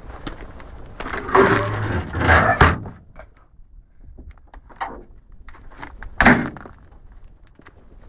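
Sliding side door of an old Volkswagen Type 2 bus running along its track with a rough rumble and knocks, then slammed shut with a single sharp bang about six seconds in; light metallic clicks in between.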